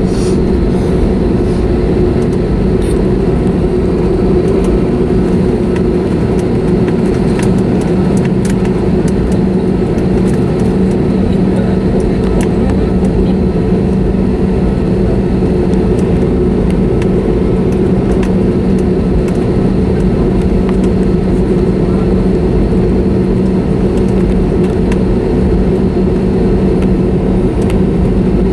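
Steady cabin noise inside an Airbus A320neo on the ground: a constant hum with a low, even drone.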